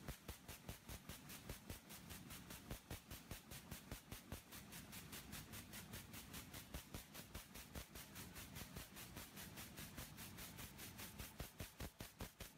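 Jacquard air-jet loom running at speed, heard faintly: a fast, even beat of several strokes a second over a steady machine hiss.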